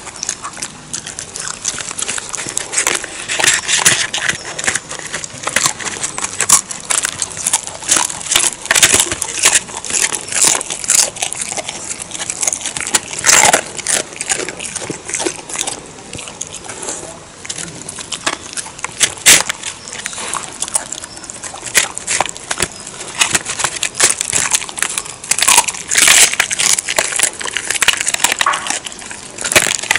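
A dog chewing fried chicken bones, a fast irregular run of crisp crunches and cracks as the bones break between its teeth.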